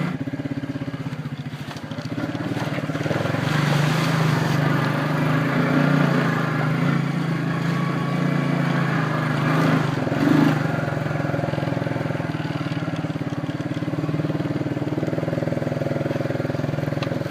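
ATV engine running steadily at low revs while being ridden, picking up a little a few seconds in and then settling back.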